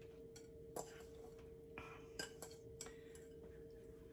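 Faint scattered clicks and taps of sliced bell peppers being tipped from a bowl onto a parchment-lined sheet pan, over a steady faint hum.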